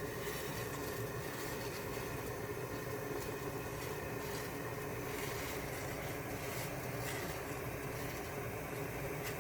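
Steady hum and hiss of a stove with a pot of ramyun cooking on it, with a faint steady tone and no sudden sounds.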